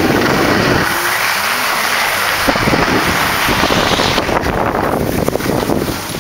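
Wind buffeting the microphone and the hiss of snow scraping under the camera operator's edges while riding downhill; the hiss drops off about four seconds in as the rider slows to a stop, leaving a lower rumble.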